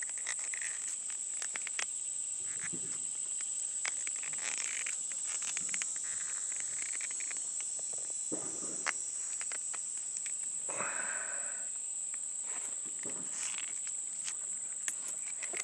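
A steady high-pitched insect drone, with scattered clicks and scrapes of hand tools being worked on a metal cable clamp.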